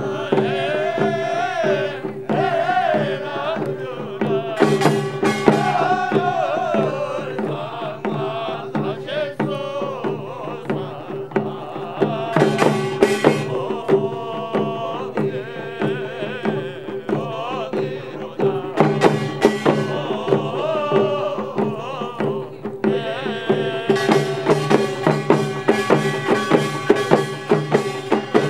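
Korean pungmul folk band music: small sogo hand drums and other percussion beat a fast, dense rhythm. A wavering melody runs over a steady held tone.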